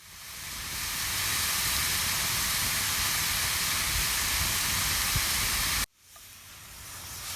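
Ground country sausage sizzling in a cast iron skillet: a steady, loud hiss that swells in over the first second, breaks off abruptly at about six seconds, then comes back quieter and builds again.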